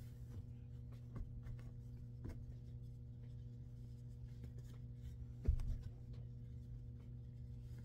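Soft rustling and light ticks of clothes being handled as socks are paired and folded, with one louder knock about five and a half seconds in. A steady low hum runs underneath.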